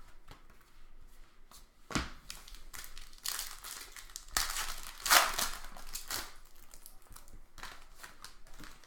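A trading-card pack wrapper being torn open and crinkled, with cards being handled, in irregular rustling bursts and a single knock about two seconds in.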